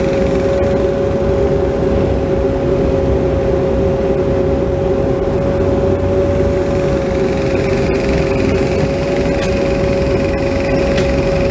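Bobcat 337 mini excavator's diesel engine running steadily while the arm digs, swings and dumps dirt, heard from the operator's cab, with a constant high-pitched whine over the engine.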